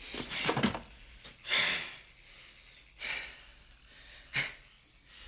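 A man breathing hard after a fight: a few short, gasping exhales, with one sharp smack about four seconds in.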